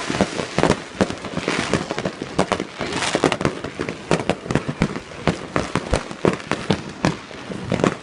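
Fireworks going off in a rapid, irregular string of bangs and pops, with crackling and hiss between them.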